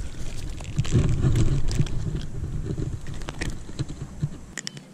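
A hooked largemouth bass splashing and thrashing at the pond's edge as it is landed by hand, over a heavy low rumble of wind and handling noise on the microphone that dies down near the end.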